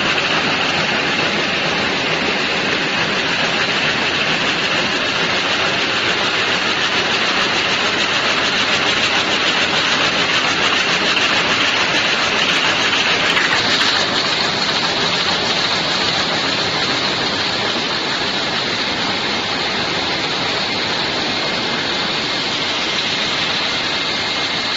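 Towel loom running at speed: a fast, continuous mechanical clatter that blends into a steady, loud noise. Its high hiss shifts a little higher about halfway through.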